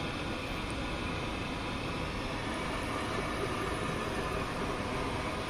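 Steady fizzing hiss of electrolyte gassing in the open cells of a Chloride Exide NS70 lead-acid car battery as it is charged hard at 90 amps from a MIG welder, boiling the cells in an attempt to restore the battery.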